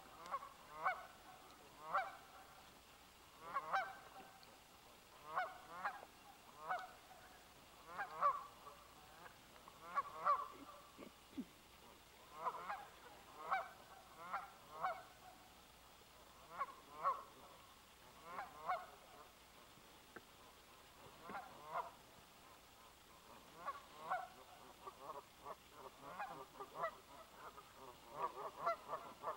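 A flock of Canada geese honking: short calls repeated every second or so, with a lull about two-thirds through and calls coming thick and overlapping near the end.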